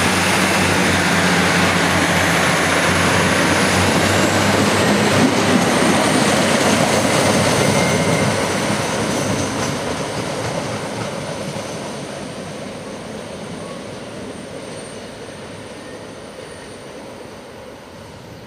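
ADL/ADC diesel multiple unit pulling away and running off into the distance: diesel engine hum and rumbling wheel-on-rail noise, with a thin high whine, loud for the first half and then fading steadily.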